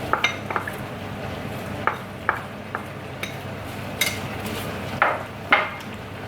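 A cooking utensil stirring curry in a pot, knocking and scraping against the pot in about ten irregular taps and short scrapes.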